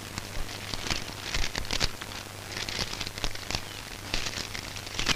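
Paper crinkling and rustling in irregular crackles as a letter is pulled from its envelope and unfolded, over a low steady hum.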